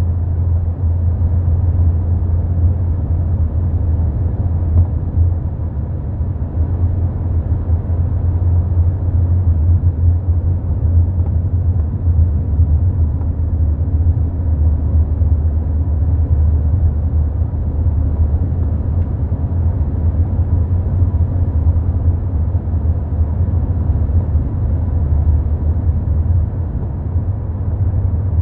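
Mk4 Volkswagen Golf on the move: a steady low rumble from the road and running gear, in which the owner hears a failing rear shock absorber.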